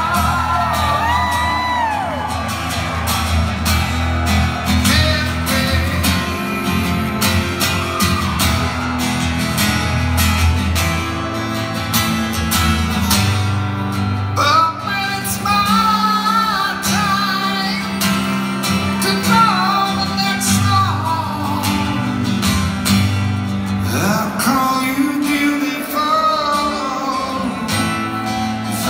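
A song performed live: a male voice singing long, bending held notes over guitar.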